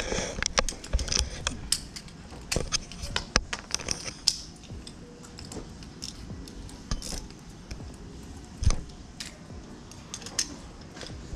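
Irregular metallic clicks and clinks of an O2 sensor socket and wrench being worked by hand, with the socket stuck on the tool. The clicks come thickly for the first few seconds, then more sparsely, with one louder knock about three-quarters through.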